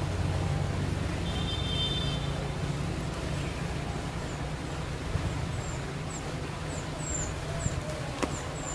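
Outdoor ambience with a steady low rumble of distant road traffic. Over the second half a small bird gives a run of thin, very high chirps, about two a second.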